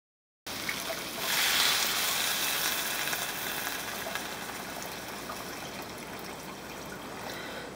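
Water poured in a steady stream into a frying pan of browned lamb and spices, splashing as it fills the pan. It swells about a second in, then slowly eases as the pan fills.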